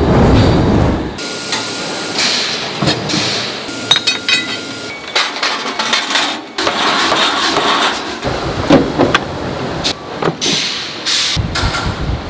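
Red-hot forged steel bow shackles plunged into a quench tank: loud churning boil and hiss of water in the first second and again near the end. Between them come clanks, knocks and hissing from hot steel being forged.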